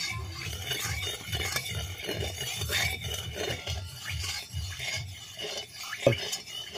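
A metal ladle stirring and scraping around the inside of a large wok (kadai) of hot oil, in regular strokes of about three a second. One sharp knock of the ladle on the wok comes about six seconds in.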